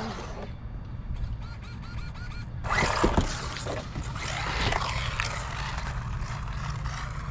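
Small electric RC buggy driving on concrete, its motor and tyres rasping, louder from about three seconds in, over a steady rumble of wind on the microphone.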